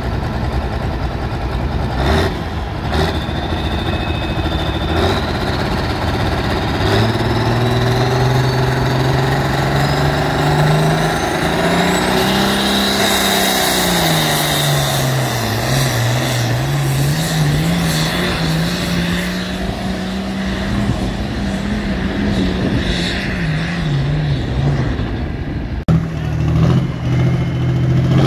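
Diesel pulling tractor's engine revving hard under load against the pulling sled, with a turbo whistle rising in pitch as it spools up; the engine note climbs, sags under the load about halfway through, then recovers. Near the end it gives way abruptly to another tractor's engine running steadily.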